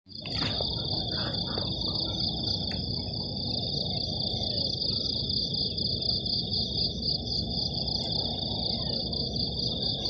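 Steady, high-pitched insect drone, fast pulsing and unbroken, over a low outdoor background hiss.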